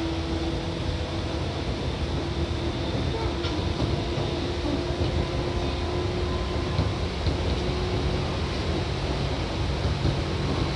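Seibu 2000 series electric train running, heard from inside the car: a steady rumble of wheels and running gear with a steady hum over it.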